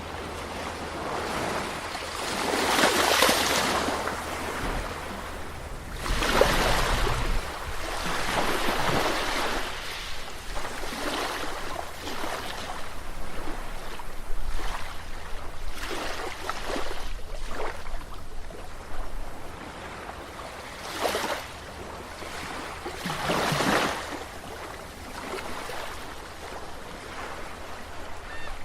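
Sea waves breaking and washing ashore, the surf swelling and falling back every few seconds.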